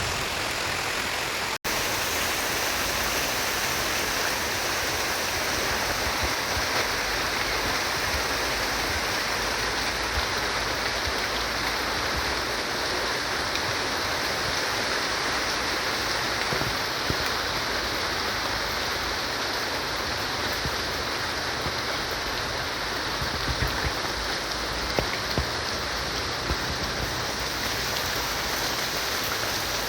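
Heavy rain falling in a steady, even hiss, with a momentary break in the sound about a second and a half in.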